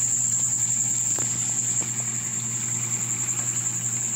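Crickets chirping in a continuous high trill, over a low steady hum, with a couple of faint clicks about a second in.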